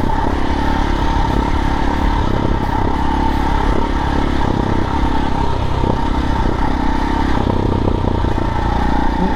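KTM 640 Adventure's single-cylinder engine running steadily as the motorcycle is ridden.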